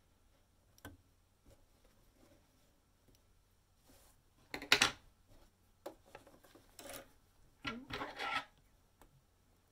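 Fabric panel and wadding rustling as they are pushed and slid across the sewing machine bed and pulled out from under the presser foot, in two short bursts, the first about halfway through and the second near the end. A single click about a second in.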